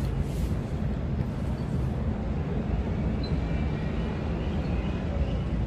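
Steady low rumble of harbourside ambience at a ferry pier, heavy in the bass and unbroken.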